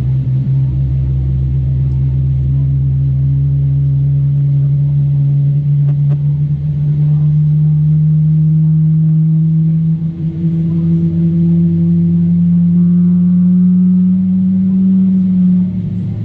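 Boeing 777-300ER's GE90-115B turbofan engine spooling up during start, heard from inside the cabin: a deep rumble with a strong low hum that climbs slowly and steadily in pitch.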